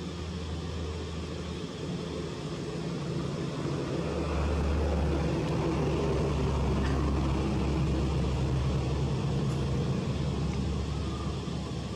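A motor vehicle's engine running steadily nearby, growing louder about four seconds in, then easing a little near the end, as if it passes by or comes close.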